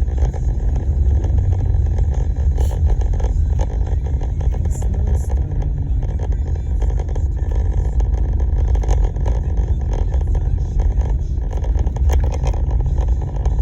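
Car being driven, heard from inside the cabin: a steady low engine and road rumble with no break.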